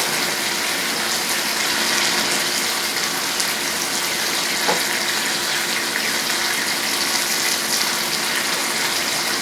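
Chicken Marsala sauce simmering in a sauté pan, a steady sizzling hiss with no letup.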